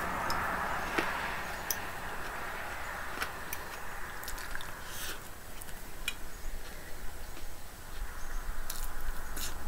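Close-up eating sounds: soft chewing with scattered small clicks of a fork against a plate.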